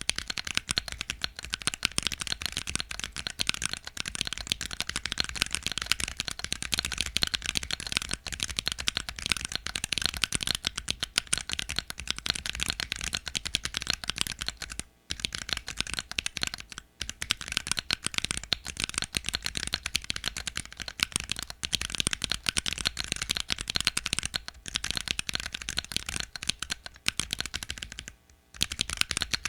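Fast continuous typing on a 40% Planck-layout mechanical keyboard with Akko Lavender Purple switches, ABS Cherry-profile keycaps, a carbon fibre plate and plate foam: a dense stream of key clicks and clacks with a few brief pauses.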